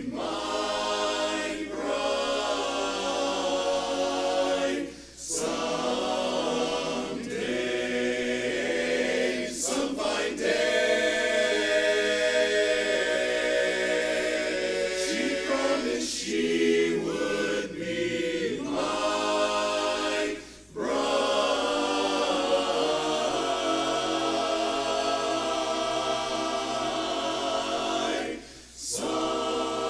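Barbershop chorus singing a cappella in close harmony, holding and moving sustained chords, with a few short breaks between phrases.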